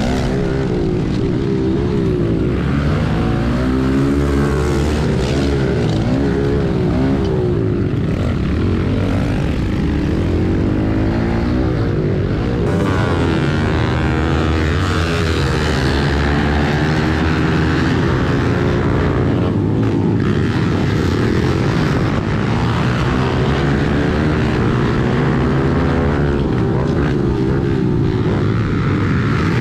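Small single-cylinder four-stroke pit bike engine heard from on board, revving up and falling back again and again as the rider works the throttle and gears, with wind rush and other pit bikes running close by.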